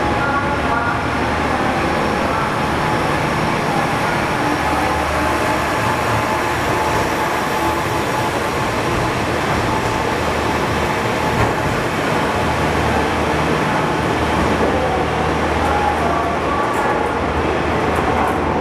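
KiHa 40-series diesel railcar with its diesel engine running, a steady low rumble under a wide wash of train noise that holds at a constant level.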